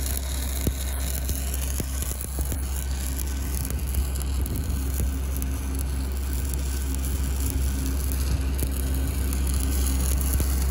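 Shielded metal arc (stick) welding with a 7018 electrode: the arc crackles and hisses steadily as the rod burns, over a constant low hum.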